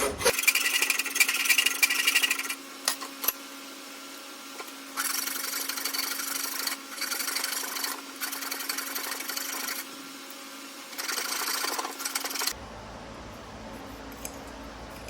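Metal file rasping on a hand-forged chain link in several runs of rapid strokes with short pauses between, smoothing the link's inside so it fits its mating link.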